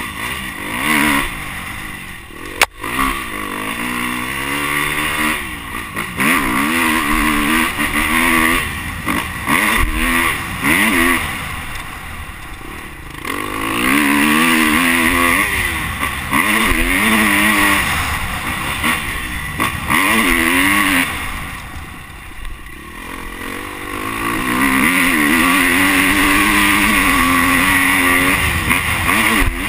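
Dirt bike engine revving hard and falling back again and again through gear changes as it is ridden at speed. There is one sharp knock about three seconds in, and the engine note drops away for a couple of seconds about two-thirds through before it pulls hard again.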